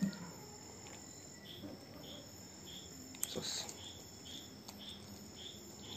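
Crickets chirping in an even rhythm, about one and a half chirps a second, over a steady high insect trill, with one sharp click about three seconds in.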